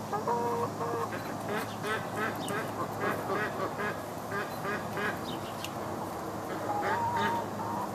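Chickens clucking, a steady run of short calls, with a longer held note near the start and another near the end.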